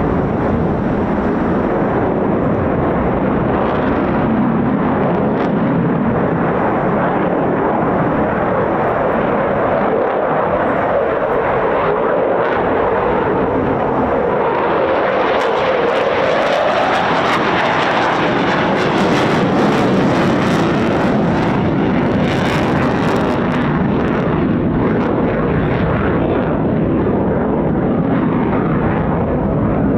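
Eurofighter Typhoon fighter jet's twin engines roaring continuously through a display. The pitch of the roar dips in the middle and then climbs, and the roar crackles strongly for several seconds just past the halfway point.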